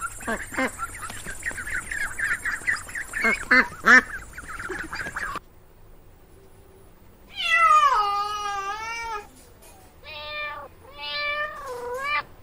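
Ducks calling in a rapid chatter of short calls, stopping abruptly about five seconds in. After a short pause a domestic cat meows three times: first one long meow falling in pitch, then two shorter meows.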